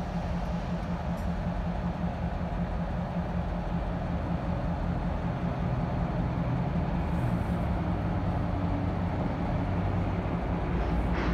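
Diesel engines of Utah Railway EMD GP38-3-led locomotives running with a steady low drone.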